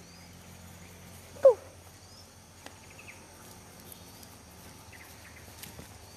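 Quiet outdoor ambience with faint high chirps, broken by one short, loud call that falls steeply in pitch about a second and a half in.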